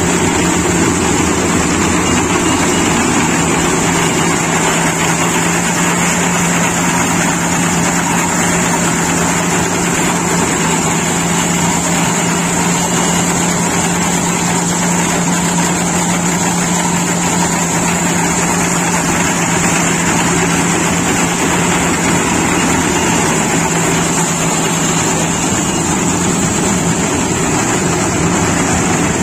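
Iseki HC80P combine harvester running steadily as it cuts and threshes rice: a constant engine drone with a steady hum.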